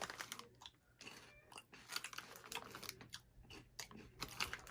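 A person chewing crunchy, savory grill-flavored snack balls with his mouth close to the microphone, a run of irregular crunches as they break up.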